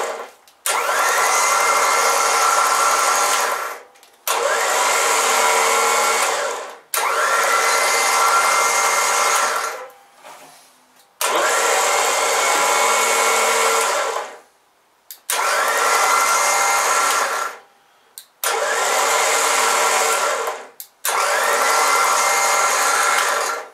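Smittybuilt 12-volt electric winch motor run in short bursts from a wireless remote, about seven runs of two to three seconds each. Each run starts with a rising whine as the motor spins up, holds steady, then cuts off, showing the newly wired remote module working the winch.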